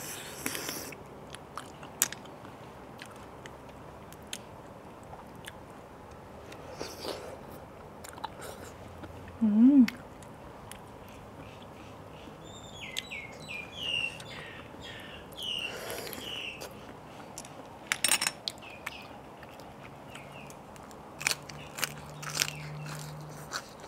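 Close-up mukbang eating sounds: wet chewing, lip smacks and crunchy bites, with a crisp bite into a raw cabbage leaf near the end. A short hum that rises and falls comes about ten seconds in, and birds chirp faintly in the background a few seconds later.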